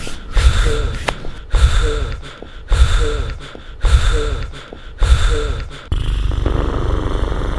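Vocal foley for a velociraptor: a run of breathy snorts, about one a second, each starting with a sharp low hit and trailing off. Near the end they give way to a longer, steady rasping growl.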